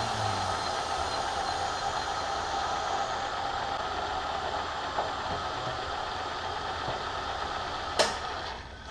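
Bridgeport milling machine running steadily with a humming whine. A sharp clunk comes about eight seconds in, and the sound then drops away.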